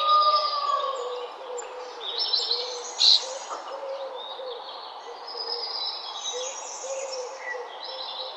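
Morning bird chorus: several birds chirping and trilling over one another, with a held whistled note that fades out about a second in and a sharp, loud chirp about three seconds in. Underneath, a lower call repeats steadily.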